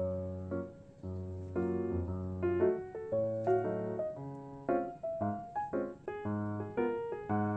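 Background music: a bright, light piano tune with a bass line moving under it.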